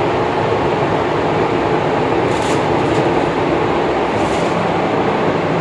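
Steady loud rush of a paint spray booth's air system, with two short hisses from a spray gun laying on clear lacquer, about two and a half and four seconds in.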